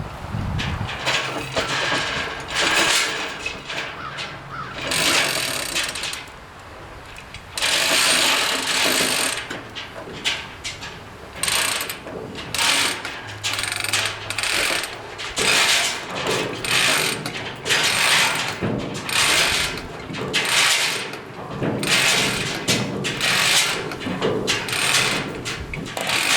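Ratchet tie-down strap being cranked tight. It makes rasping ratchet clicks in repeated strokes, a few longer ones at first, then short strokes about once a second.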